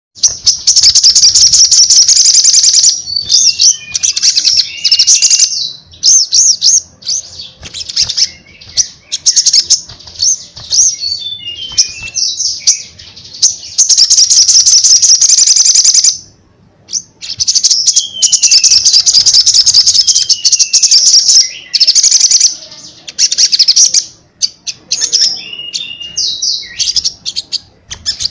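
Male olive-backed sunbird (sogon) singing loudly and continuously: long, very rapid high trills and chatter, broken by short falling whistled notes. There is a brief pause about two-thirds of the way through.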